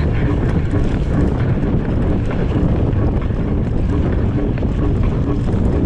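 Steady wind buffeting the microphone, over the loud low rumble of a mountain bike rolling fast over rough ground.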